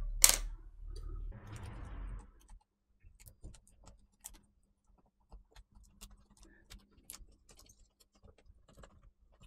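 Small scattered clicks and taps of hands working cables and plastic parts inside an opened laptop base, with a sharp click right at the start and a brief soft rustle about a second and a half in.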